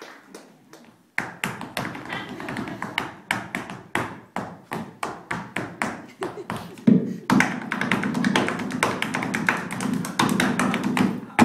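Flamenco-style acoustic guitar strummed in fast, percussive strokes, with a dancer's rapid foot stamps and taps on the stage. It starts suddenly about a second in, after a short pause, and runs as dense, sharp strikes.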